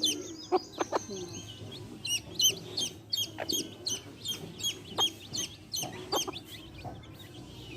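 Baby chicks peeping over and over in quick, high, down-bending chirps, with a hen clucking low beneath them. A few sharp taps come through now and then.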